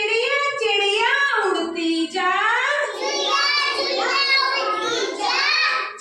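Children's voices singing a Hindi nursery rhyme, a high-pitched sing-song chant that carries on without a break.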